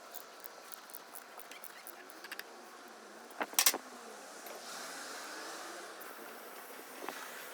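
Light metallic clicks and clinks of tools or parts being handled during the oil change, then a short sharp clatter of a few knocks about three and a half seconds in.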